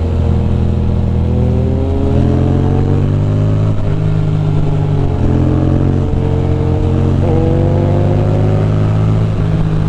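Ducati Monster's V-twin engine pulling the motorcycle along a road, its pitch climbing slowly and dropping back a few times as the rider shifts or eases off the throttle.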